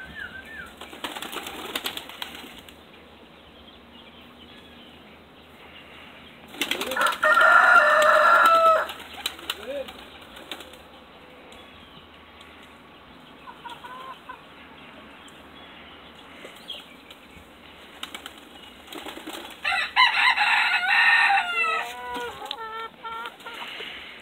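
Young pigeons flapping their wings while perched on a hand, and a rooster crowing loudly twice, once about a third of the way in and again about 20 seconds in. The second crow trails off at the end.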